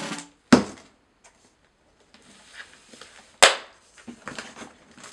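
A cardboard shipping box being handled and opened. There are two sharp knocks, about half a second in and about three and a half seconds in, with faint rustling and scraping of cardboard between them.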